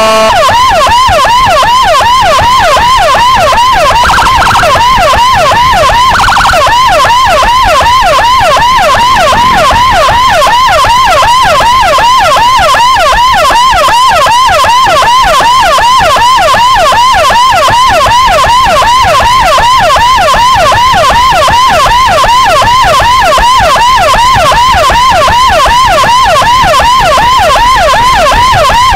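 Motorcycle-mounted electronic siren (CJB 200E driving a Toa YD100i speaker) sounding a fast yelp, its pitch rising and falling about three to four times a second, very loud and close. Two short steady blasts break in at about four and six seconds in.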